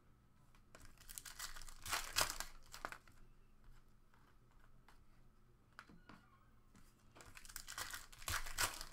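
Foil trading-card pack wrapper crinkling and tearing open, in two bouts of crackling: one about a second in, the other near the end.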